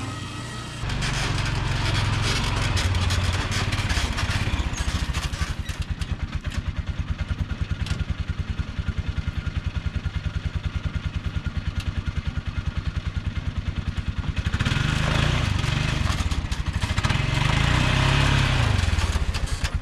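An engine running with a steady, fast, even pulse, growing louder twice in the last few seconds.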